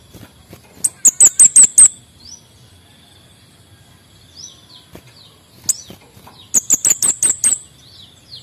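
Male kemade bunga api songbird singing: two loud bursts of about five rapid, sharp, very high notes, about a second in and again about six and a half seconds in, with short down-slurred chirps between them. A faint steady high whine runs underneath.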